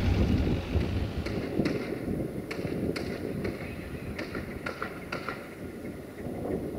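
Wind buffeting the microphone as a low rumble, with a run of light, irregular clicks and taps from about a second in.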